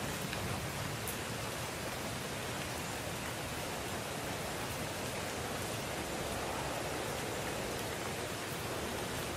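Steady, even hiss of rain falling, with no other events.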